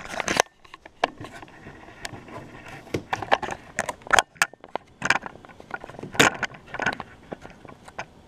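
Irregular clicks, knocks and crinkles of hands handling things on a kitchen counter, including a plastic bag of mini bell peppers, with a few sharper knocks in the second half.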